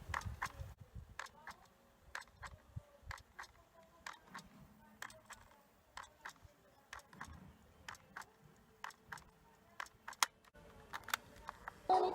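Light, sharp clicks and taps, irregular and a few each second, from small parts and tools being handled on a Sony WM-D3 cassette Walkman's mechanism.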